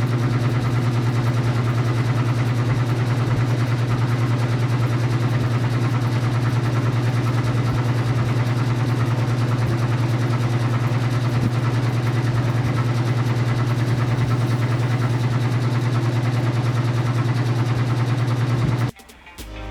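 LG air conditioner fan running noisily, a loud steady hum with a fast rattle, because its centre shaft is broken. It cuts off suddenly near the end.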